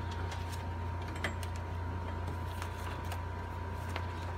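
Light taps and rustles of stiff cardboard paper being handled and pressed on a table, a few faint clicks scattered through, over a steady low hum.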